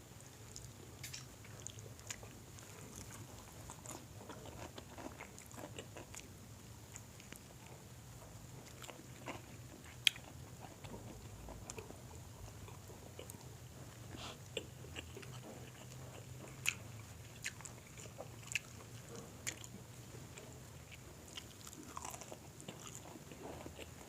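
Close-miked chewing and biting into crispy fried chicken, with scattered soft crunches and one sharper crack about ten seconds in. A faint steady low hum sits underneath.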